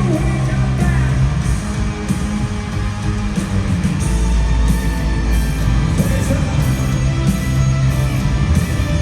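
Live hard rock band playing loud in an arena, with distorted electric guitars, heavy drums and cymbals, and vocals, as heard from the crowd.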